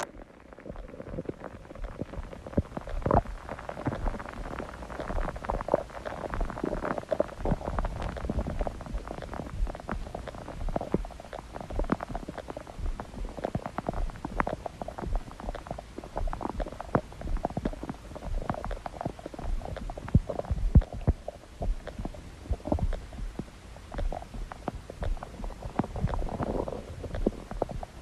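A person's stomach growling: a long, irregular run of gurgles and sharp little pops that keeps going throughout.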